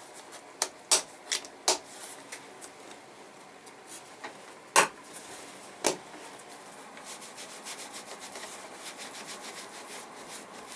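Handmade leather tool pouch being handled: several sharp clicks in the first two seconds and two louder ones about five and six seconds in, then steady rubbing and rustling of leather as the pouch and its leather lace are worked by hand.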